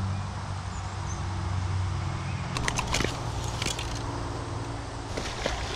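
Steady low hum of a running engine, with a few sharp clicks and rattles about halfway through and again near the end.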